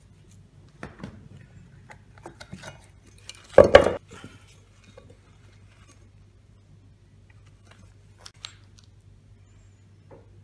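A cast brass plaque being handled and turned over on a wooden block: scattered scrapes and knocks of metal on wood, with one loud clatter a little past three seconds in and a couple of sharp clicks near the end.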